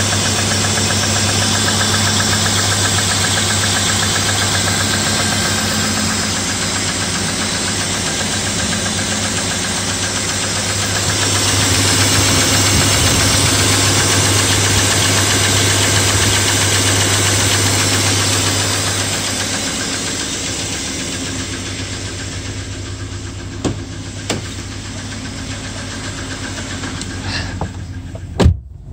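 BMW M50 straight-six idling from a cold start with a light ticking of the hydraulic lifters ("чуть-чуть"). The owner puts the ticking down to oil too thick for the cold. The running gets quieter about two-thirds of the way in, and a few short knocks come near the end.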